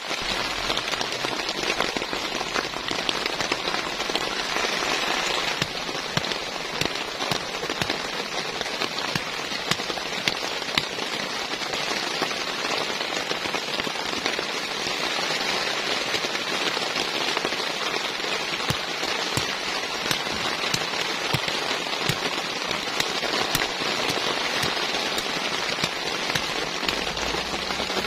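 Steady rain falling, a dense hiss thick with the sharp ticks of individual drops.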